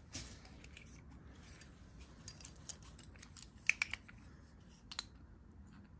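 Metal hand tools handled on a workbench: a pliers wrench and an adjustable spanner picked up, giving a quick cluster of three light metallic clicks a little under four seconds in and one more around five seconds, over soft handling noise.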